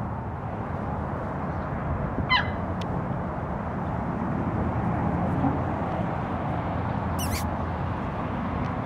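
Outdoor ambience: a steady low rushing noise. Two short high animal calls cut through it, the first falling sharply in pitch about two seconds in, the second brief and shrill about seven seconds in.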